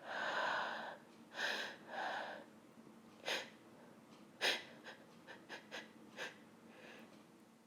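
A woman breathing hard and gasping just after a sneeze, then a few brief sharp breaths spaced a second or so apart. This is the nose tickle from sniffed pepper building between sneezes.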